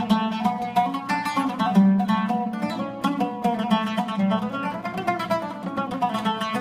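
Oud played solo: a quick melody of plucked single notes, several a second, with a low string sounding again and again beneath it.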